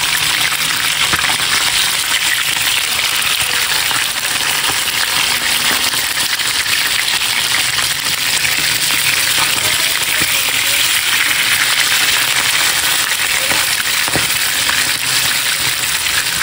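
Marinated milkfish frying in hot oil in a pan: a steady, dense sizzle with fine crackling.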